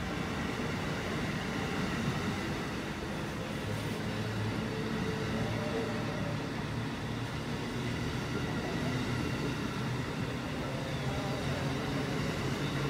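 Amtrak Northeast Regional passenger cars rolling past on the rails, a steady rumble of wheels with a low hum underneath.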